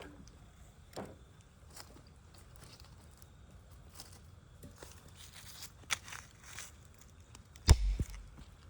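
Wood fire burning with sparse sharp pops and crackles, then one loud dull thump near the end.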